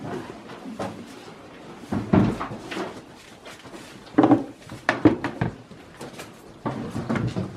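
Irregular knocks and bumps as goats jostle at a salt lick block against the wooden wall of their stall. A faint steady hiss of rain runs underneath.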